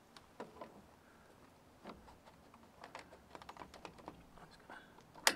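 Faint, scattered clicks and taps of plastic being handled as a PVC screen flapper fitting is fitted onto the end of a PVC drain pipe, with one sharper click just before the end.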